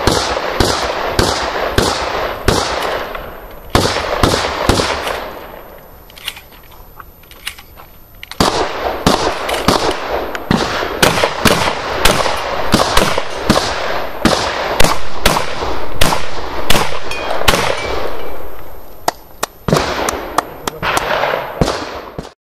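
Shotgun fired in rapid strings, about two shots a second, each shot echoing. The firing stops for about four seconds a few seconds in, then picks up again and goes on until the sound cuts off suddenly near the end.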